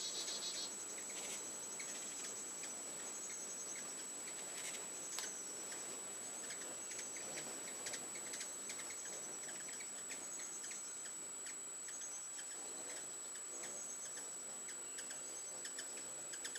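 Faint, high, short chips and twitters of several ruby-throated hummingbirds around a feeder, scattered through, with small ticks, over a steady high thin tone.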